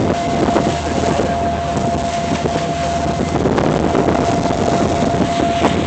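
Wind buffeting the microphone over a steady low drone, with a constant thin whine.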